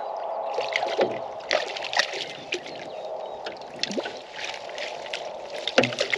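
Water splashing as a hooked fish is scooped into a landing net beside a boat: several sharp splashes and drips, the loudest about a second and a half, two seconds and near six seconds in, over a steady hum.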